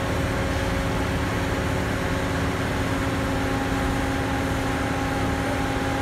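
Hydraulic vibratory pile driver clamped on a steel H-pile, running steadily with a dense low rumble and a steady whine; a higher tone joins about three and a half seconds in.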